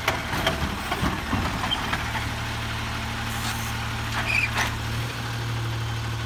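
2009 Autocar Autoreach side-loading garbage truck running steadily while its automated arm sets an emptied cart down and pulls back, with clattering knocks in the first second and a half and a couple more clanks about four and a half seconds in.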